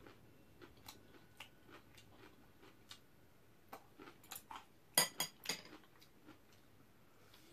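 Metal chopsticks clicking lightly against a dish during a meal, scattered soft ticks with a quick run of sharper clinks about five seconds in.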